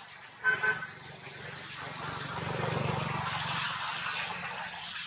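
A motor vehicle passing: its engine and road noise swell to a peak about three seconds in, then fade. A brief pitched sound comes about half a second in.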